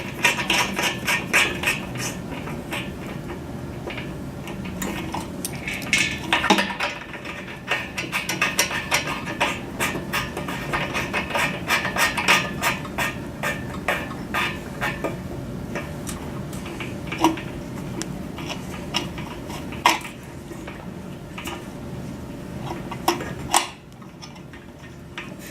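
Light clicks and clinks of small metal parts being handled while the dish's SMA cable connectors are fitted. The clicks come thick and fast for about the first fifteen seconds, then thin out to a few single clicks.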